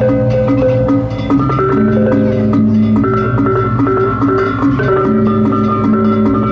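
Balinese gong kebyar gamelan playing at full ensemble: bronze metallophones struck in dense, rapid patterns over held, ringing lower tones, at a steady loud level.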